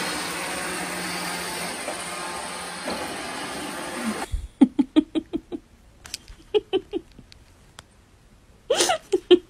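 Robot vacuum cleaner running with a steady whir, a cat riding on top; it cuts off abruptly about four seconds in. Then comes a quick string of short pitched sounds, with louder ones near the end.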